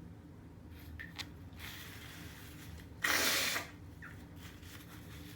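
A single sneeze about three seconds in: a soft breathy intake, then a sharp burst of breath lasting about half a second.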